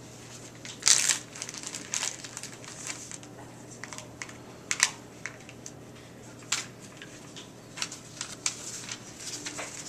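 A clear plastic zip-top bag and the paper letter inside it being handled and opened: irregular crinkles and rustles, the loudest about a second in.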